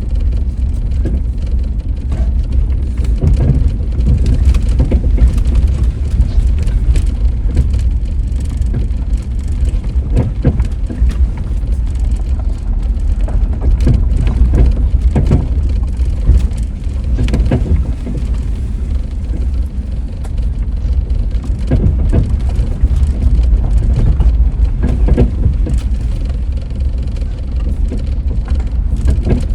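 Steady low rumble of a car driving, heard from inside the cabin, with frequent short knocks and rattles from bumps in the road.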